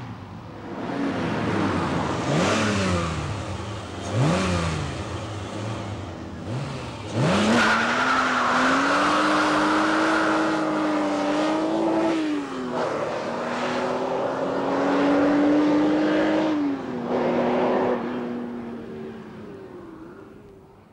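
Racing car engines revving and passing: a few quick swoops in pitch, then a loud, sustained high engine note held for several seconds with small rises and dips, fading away near the end.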